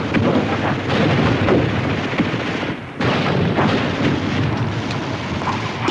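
Battle din of gunfire and shell explosions, continuous and loud, dropping briefly just before halfway and then resuming abruptly.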